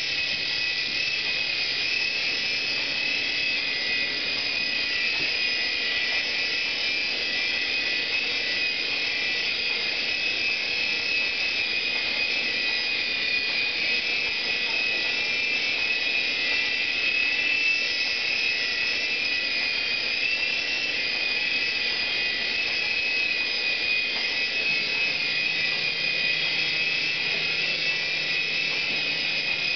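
Air Hogs Sharpshooter toy remote-control helicopter running, its small electric motors and rotors giving a steady high-pitched whine.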